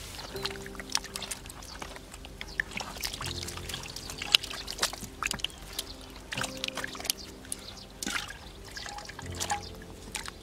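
Water splashing and pouring in quick, irregular strokes, over background music with steady held notes.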